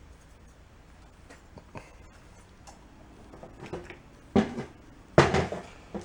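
Small metal engine parts being handled and set down on a workbench: a few light clicks, then two sharper clunks about four and a half and five seconds in.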